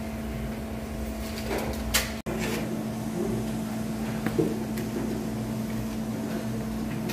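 Fast-food restaurant counter ambience: a steady mechanical hum with a low rumble, broken by a few light clicks and knocks from handling at the till.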